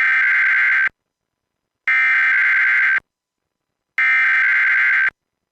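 Emergency Alert System SAME header: three identical bursts of high, warbling digital data tones, each about a second long and about two seconds apart.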